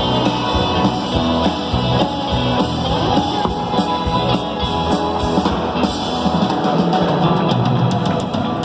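Live rock band playing an instrumental passage, with electric guitar over a steady drum-kit beat.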